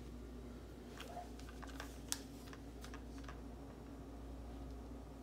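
Light clicks and taps from handling a DPMS SBR CO2 BB rifle's parts, scattered over a couple of seconds, with one sharper click about two seconds in.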